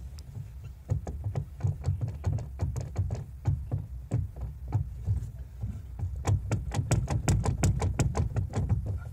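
Volkswagen Fox steering knocking in quick, irregular clunks as the steering is worked back and forth, coming faster in the second half: the play of a worn steering box (rack).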